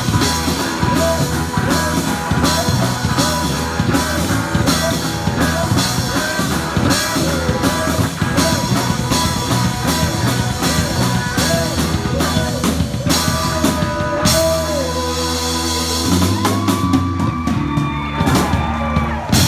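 Live rock band of electric guitars and drum kit playing loud, with a guitar repeating a short bending lick. About two-thirds of the way in the drumming thins out and the guitars ring on in long, wavering sustained notes.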